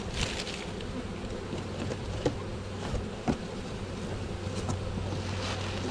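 Swarm of honeybees humming steadily around an open hive box they have just been shaken into, with newspaper crinkling and a few sharp crackles as it is packed in among them.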